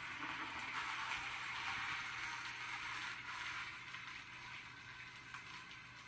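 Xiaomi Mi Robot Vacuum-Mop 2 Pro running its motors as it drives back to its charging dock, a steady whir that fades down about halfway through as it slows near the dock.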